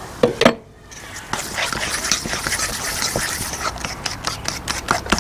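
A fork whisking wet batter in a stainless steel bowl: quick, repeated clicking and scraping of the metal fork against the bowl, with a couple of louder knocks about half a second in.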